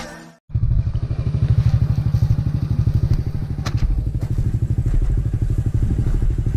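Small motorcycle engine idling close by, a steady rapid putter. A short click about three and a half seconds in.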